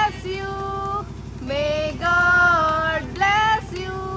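Voices singing a birthday song in long held notes, over a steady low mechanical hum.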